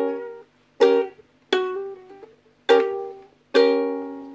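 Mahalo ukulele playing plucked chords, four in all, each struck sharply and left to ring and fade. Between two of them a note changes without a fresh pluck: a hammer-on and pull-off.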